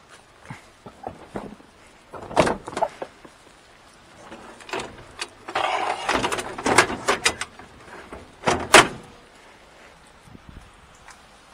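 Knocks and clatters of drain-cleaning gear being stowed on a work truck, with a noisy scraping stretch around six seconds in and two sharp bangs, one about two and a half seconds in and one near nine seconds.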